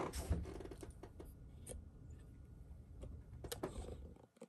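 Faint handling noise of hands on a tabletop: a soft knock at the start, then scattered light clicks and taps, with a sharper pair of clicks about three and a half seconds in. A low background hum cuts out near the end.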